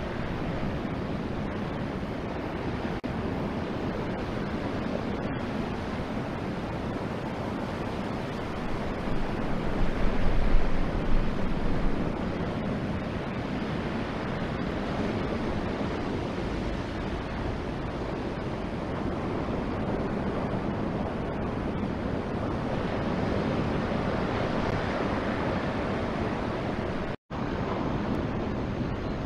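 Ocean surf breaking on a shingle beach, with wind on an outdoor microphone: a steady rushing noise. About nine seconds in it swells for a few seconds with a low rumble, and it breaks off for an instant near the end.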